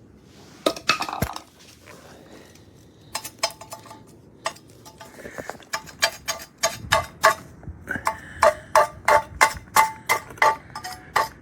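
Sharp metallic clinks of a chipping hammer striking a freshly laid stick weld to knock off the slag. A few scattered strikes come first, then from about halfway in a steady run of ringing taps, two or three a second.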